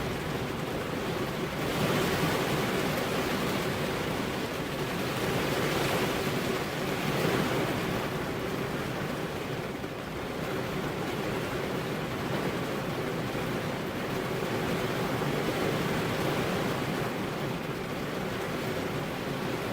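Heavy rain falling steadily, a dense even hiss that swells a little louder a couple of times.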